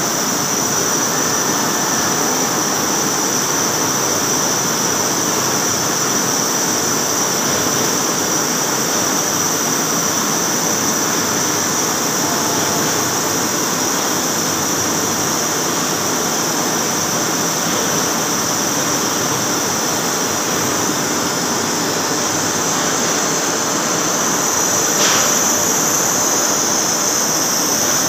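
CNC lathe turning a large steel roll, the tool cutting steel, with a steady high whine over the machine's running noise. A brief click comes about three-quarters of the way through, and the whine grows a little louder near the end.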